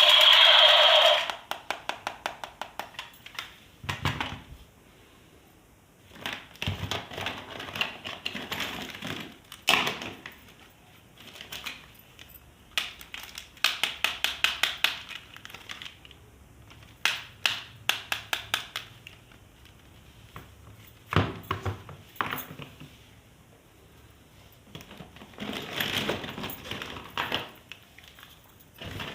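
Plastic toy parts and packaging being handled: bursts of rapid clicking and rattling with some crinkling, separated by quieter pauses. A loud electronic buzzing tone cuts off about a second in.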